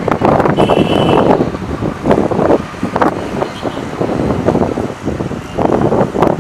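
Jet airliner's engines roaring during takeoff, with gusts of wind buffeting the microphone.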